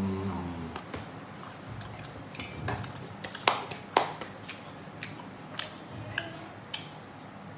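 Close-up chewing with wet mouth clicks and smacks. About three and a half seconds in come two sharp claps half a second apart as the hands are brought together and brushed off.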